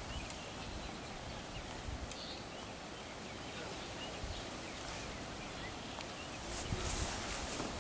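Outdoor ambience: a steady background hiss with scattered rustling and light clicks of brush and cut branches being handled, a louder rustle about six and a half seconds in.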